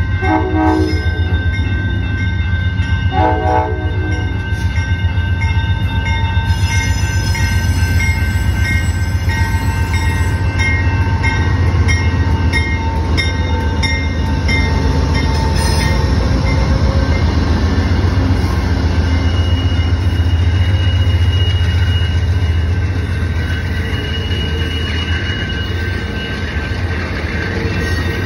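Amtrak GE Genesis diesel locomotive sounding its horn as it passes through a grade crossing, with a crossing bell ringing. The horn's long blast stops about two-thirds of the way through, leaving the diesel's rumble and the passenger cars' wheels rolling past.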